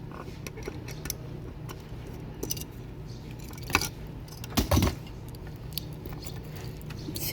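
Small metal parts clinking and clattering as they are handled, with light clicks throughout and a louder clatter about four and a half seconds in, over a steady low hum.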